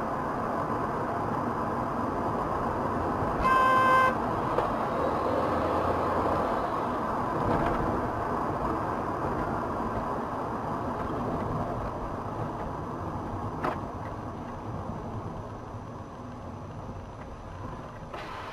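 Car on the road with steady road and engine noise, and a single car horn blast of under a second about three and a half seconds in. A sharp click comes about thirteen and a half seconds in, and the road noise eases off over the last few seconds.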